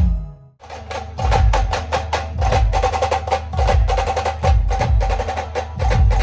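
Band-party music: fast, dense drumming with deep regular beats under a steady held melody note. The music cuts out briefly less than a second in, then the drums come straight back in.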